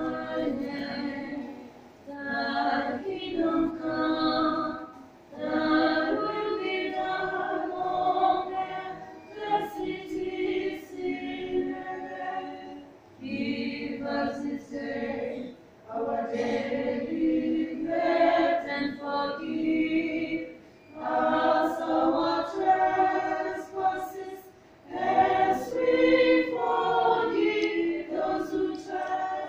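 A group of hospital staff singing together a cappella, in phrases broken by short pauses for breath every few seconds.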